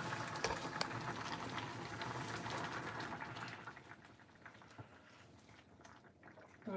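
Curry broth with udon simmering in a pan, a busy bubbling with many small pops, which falls away about halfway through.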